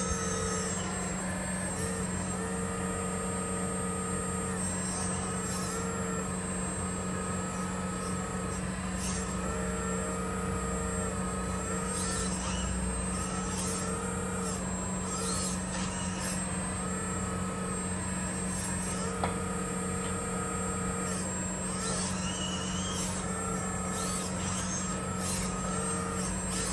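1/12-scale RC hydraulic excavator (CAT 336GC model) working its arm and bucket: a steady hum from its tank-mounted hydraulic pump, with a whine that changes pitch and starts and stops every few seconds as the valves move the arm and bucket, and short hissy bursts.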